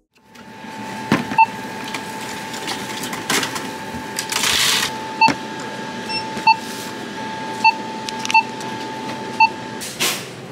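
Coffee-shop counter ambience: a steady electronic hum with six short beeps from café equipment at uneven gaps. A brief hiss comes about four and a half seconds in, and there are a few light knocks.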